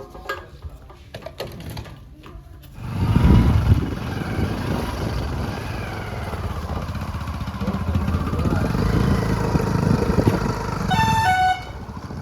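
Diesel engine of a JCB 3DX backhoe loader running loud from about three seconds in, after a few seconds of light knocks. Near the end a vehicle horn gives two short notes, the second lower.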